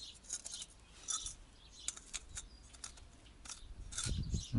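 Thin steel trim rings handled on a concrete slab: scattered light metallic clicks and taps, a few with a brief ring, as the rings are picked up and shifted, with a low rumble near the end.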